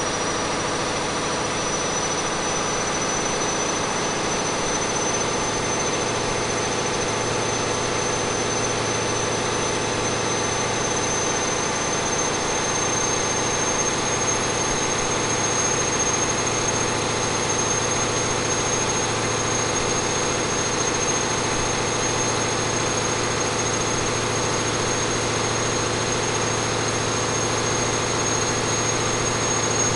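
Caterpillar 3508B V8 twin-turbo diesel engine running steadily under load on a dynamometer, with a high whine that slowly rises in pitch as the engine works, the overall level edging up slightly.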